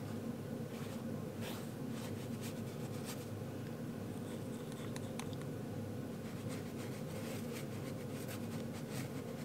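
Watercolour paintbrush scrubbing paint up from a small pan and brushing it onto paper: soft, scattered scratchy strokes over a steady low hum.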